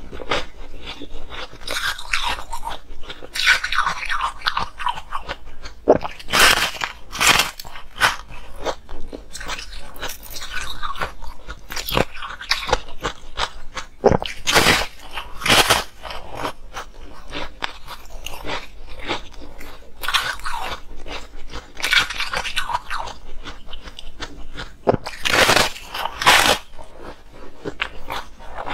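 Close-up biting and chewing of a slab of coloured frozen ice: continuous crisp crunching as the ice is ground between the teeth, with a few louder cracking bites that come in pairs about a second apart.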